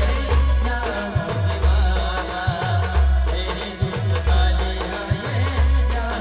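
An Adivasi band playing an instrumental passage of a devotional folk song. Deep, booming drum beats come in pairs with a falling pitch, under rattling percussion and a sustained melody line.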